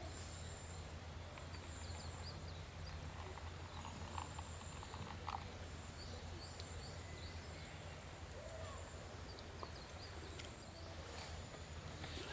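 Quiet outdoor campsite ambience: faint, thin, high bird chirps come and go over a steady low hum.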